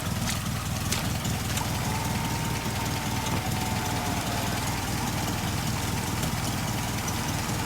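UAZ engine idling steadily while an electric winch reels in cable under load, its motor giving a faint steady whine from about a second and a half in.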